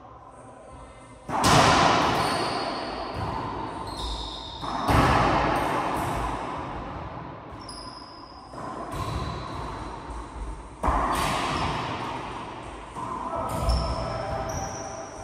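Racquetball shots in an enclosed court: about five sharp cracks of the ball off racquet and walls, a few seconds apart, each followed by a long echo. Short high squeaks, typical of sneakers on the court floor, come between the shots.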